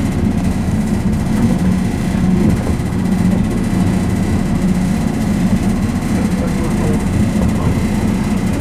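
A JR West 103 series electric train running, a loud, steady low rumble with a faint thin high tone over it.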